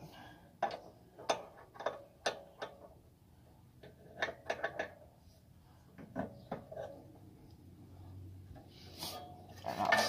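Open-end wrench clinking against a compression nut as it is tightened: about five sharp metallic clicks in the first three seconds, then a few more clicks and small handling noises.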